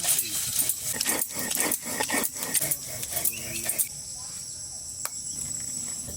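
A quick run of clicks and knocks, like handling or working food and utensils. About four seconds in it gives way to a steady high chirring of insects, such as crickets, with an odd click over it.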